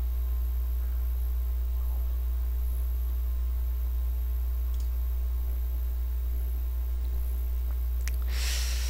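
Steady low hum with faint room noise, a couple of faint ticks, and a short breath near the end.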